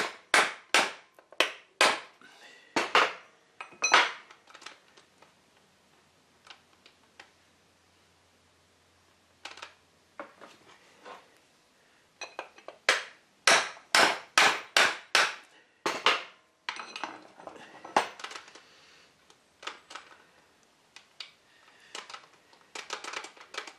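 Hammer blows driving a copper drift against a shaft in a lathe's feed gearbox: metal striking metal, in two quick runs of sharp strikes about two a second, with a pause and a few single knocks between. Lighter knocks and clinks follow near the end.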